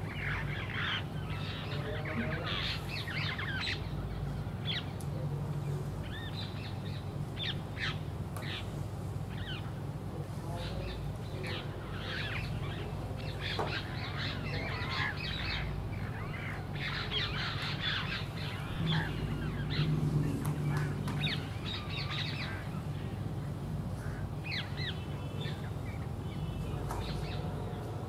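Birds chirping and calling repeatedly in short, quick notes, with a steady low hum underneath.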